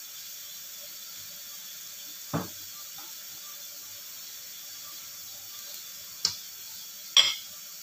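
Steady hiss of a pan of chicken and vegetables simmering in broth on the stove, with three short knocks, likely a utensil or bottle against the pan.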